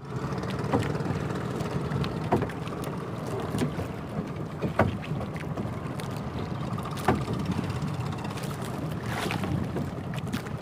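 Small outrigger fishing boat's motor running steadily, with wind buffeting the microphone and a few sharp knocks on board.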